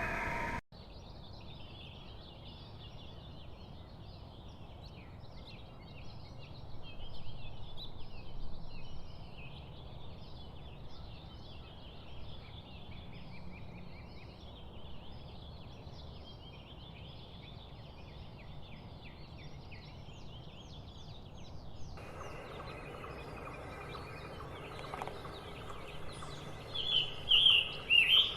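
Many birds chirping at once, a dense chorus of overlapping short high calls, with a few louder close calls near the end.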